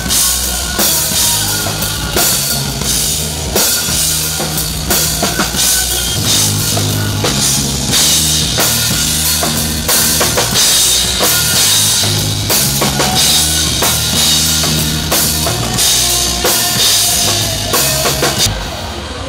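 Acoustic drum kit played in a steady groove with the band: regular kick and snare hits with cymbals ringing over them, at a band sound check.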